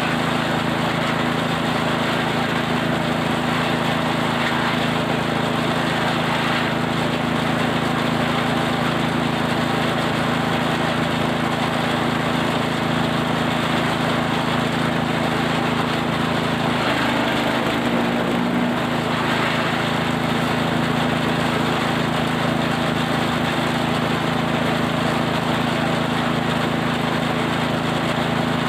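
Engine-driven forage chopper running steadily as it chops cattle feed, with an even engine hum. Its engine note changes briefly about two-thirds of the way through, then settles back.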